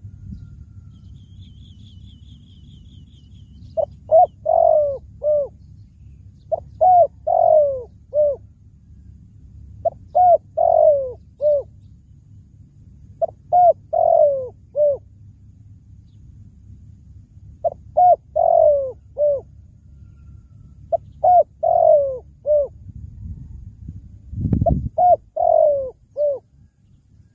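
Spotted dove cooing, repeating its phrase of four or five notes seven times, about every three and a half seconds. A low thud sounds near the end.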